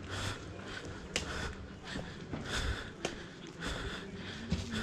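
A person breathing hard, in repeated puffs about once a second, from the exertion of walking up a steep lane. A few sharp taps are heard along with it.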